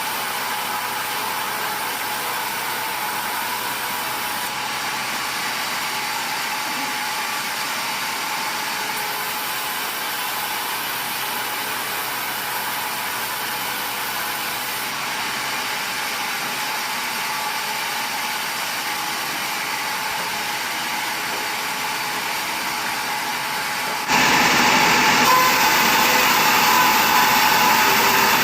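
Sawmill machinery running steadily: a continuous mechanical noise with a faint steady whine, which gets suddenly louder near the end.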